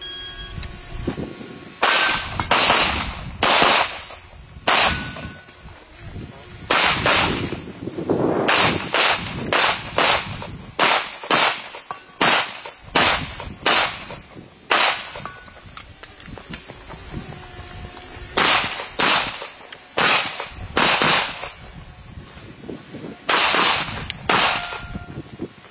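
Handgun fired rapidly through an IPSC practical-shooting stage: about two dozen sharp shots, mostly in quick pairs, with short breaks around the middle and near the end as the shooter moves between positions.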